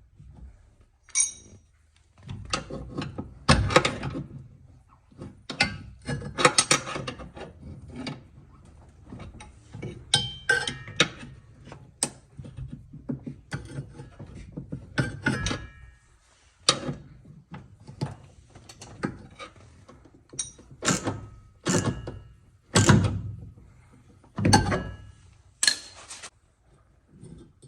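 Washing-machine parts and tools being handled: irregular knocks, thunks and clicks, some with a short metallic ring.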